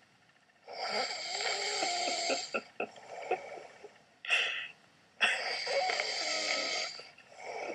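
A man snoring heavily in his sleep after drinking: two long snores of about two seconds each, with a brief one between them.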